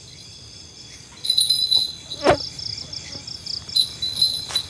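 Crickets chirping in a steady, finely pulsing high trill, with one short sharp click about two seconds in.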